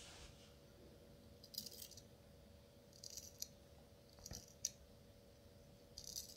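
Freshly honed Vincent Intrépide French straight razor shaving whiskers in four short strokes, each a faint, high, crackling rasp of the edge cutting stubble. The razor "sings", the sign of a keen edge that cuts well.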